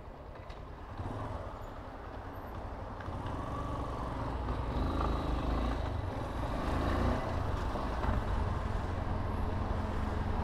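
Motorcycle pulling away and gathering speed: a low engine rumble that grows steadily louder, its pitch rising and falling around the middle.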